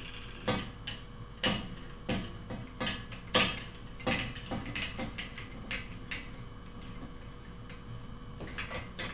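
Metal fastening frame of a pipe-lining pullback unit being adjusted and fitted around a pipe by hand: irregular metallic clicks and clinks, most of them in the first five or so seconds, then sparser.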